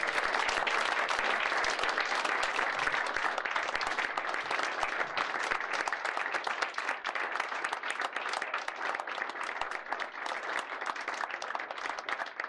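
A roomful of people clapping: a steady round of applause that slowly tapers off.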